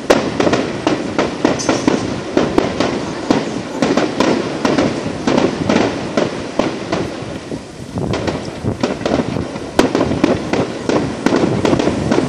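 Aerial fireworks: a rapid, continuous series of bangs and crackles from bursting shells. It eases for a moment a little past halfway, then a single sharp, loud bang comes about ten seconds in.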